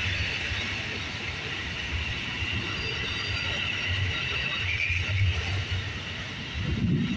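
Amtrak Superliner bilevel passenger cars rolling past on the rails, a steady low rumble with a continuous high-pitched hiss over it.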